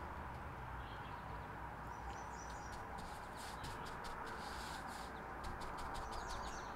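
Quiet outdoor ambience: a steady low background hiss with a few faint, short bird chirps high above it.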